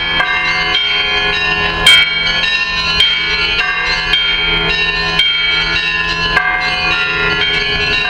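Russian Orthodox church bells rung in a festive peal, several bells of different pitches struck in quick, overlapping succession. A sharp crack about two seconds in is the loudest moment.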